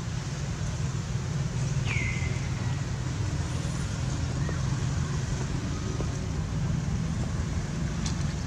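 Steady low outdoor rumble, like distant traffic or wind, with one short high call about two seconds in that drops quickly in pitch and trails off.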